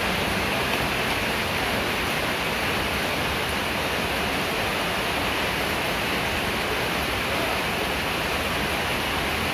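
Heavy rain pouring down steadily, a dense, even hiss.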